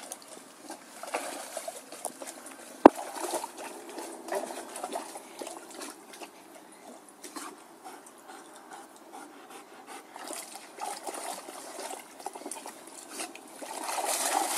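A German shepherd wading in shallow lake water, with water trickling and splashing around its legs, and louder splashing near the end. One sharp click about three seconds in.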